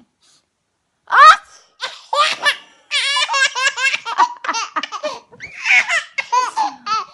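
Baby laughing in rapid, high-pitched belly laughs, many pulses a second, after a short loud vocal burst about a second in.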